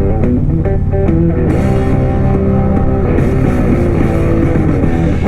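Guitar-driven rock music playing from a motorcycle's fairing and rear speakers (Soundz Customz Iron 65s), heard through a microphone inside a full-face helmet at highway speed. A steady low hum runs underneath.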